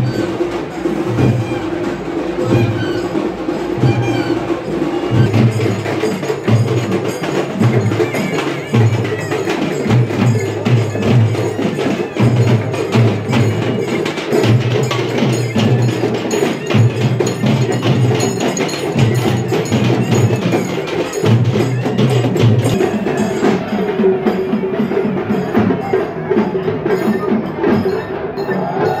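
Festival percussion music: drums beating a steady repeating rhythm under rapid metallic clanging of bells. The drum beats drop out about three-quarters of the way through while the clanging goes on.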